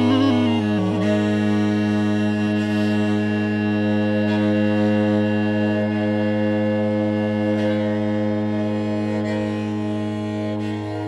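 Homemade PVC bagpipe and tagelharpa playing an improvised drone tune: a steady low drone under a short moving melody that settles about a second in onto one long held note, which stops shortly before the end.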